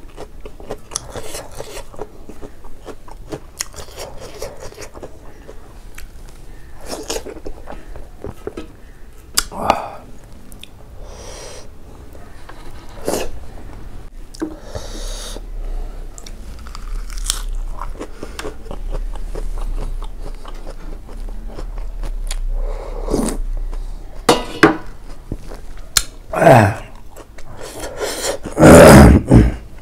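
Close-up eating by hand: chewing and biting, with soft mouth clicks and smacks, on buckwheat dhido and pork-trotter curry. A few louder mouth sounds come near the end, the loudest just before it ends.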